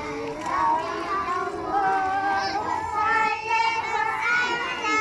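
Children's voices singing an Arabic salawat nasheed in praise of the Prophet Muhammad, with long held notes in the middle.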